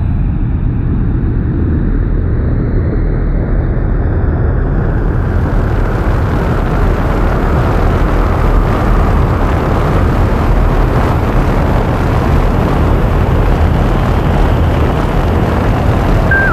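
Designed sci-fi spaceship engine rumble: a loud, steady deep roar of noise that grows brighter over the first several seconds as a hiss fills in above it, then holds.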